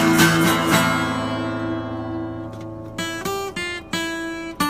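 Acoustic guitar played alone. A couple of strummed chords are left to ring and fade for about two seconds. Near the end, a few short chords are struck in quick succession.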